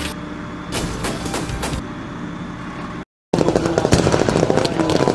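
Wheeled armoured vehicle's engine running, with a few sharp shots. About three seconds in the sound cuts out for a moment and resumes as a dense crackle of rapid gunfire.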